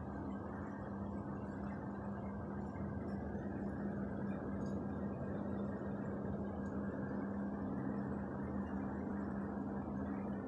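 Aquarium pump running: a steady hum over an even hiss.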